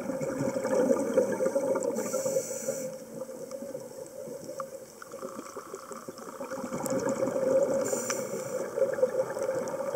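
Scuba regulator breathing heard underwater. There are short hissing inhales about two seconds in and again near the end, and bubbling exhales that swell, die down in the middle and swell again.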